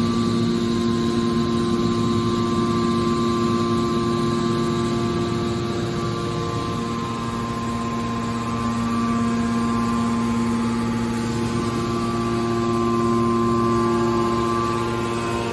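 Scrap metal baler's hydraulic power unit running with a steady, even-pitched hum, dipping slightly in level about halfway through.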